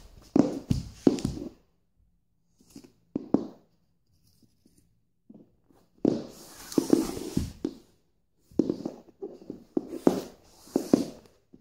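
Plastic Schleich toy horse knocked and scuffed along a wooden floor in short quick runs of taps, with pauses between runs.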